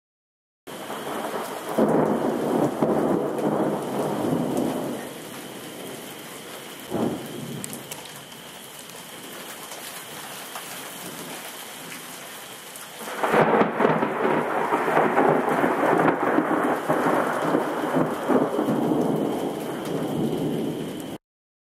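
Supercell thunderstorm with heavy rain: a loud rolling peal of thunder about two seconds in that dies away over a few seconds, a short sharp crack near seven seconds, then steady rain. A second long, loud rumble of thunder starts about thirteen seconds in and runs on until the sound cuts off abruptly.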